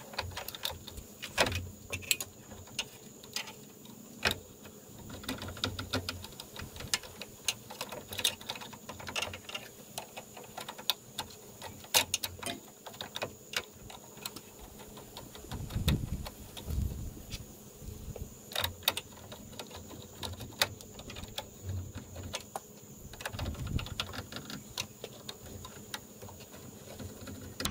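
Irregular metallic clicks and clinks as a headlight retaining ring and its screws are handled and driven in with a screwdriver, with a few duller knocks around the middle.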